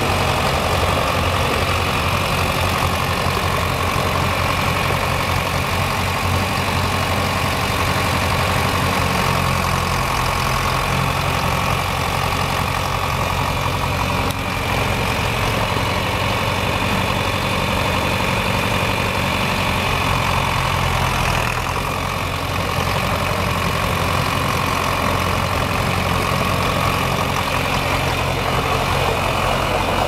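John Deere 3020 tractor's four-cylinder engine running steadily at low speed while the tractor is driven slowly.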